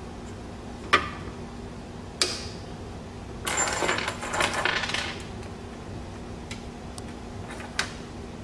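Small metal hardware clicking and clattering as it is handled on a wooden workbench. Two sharp clicks come in the first couple of seconds, then a busy rattle of loose parts lasting about a second and a half, then a few light ticks.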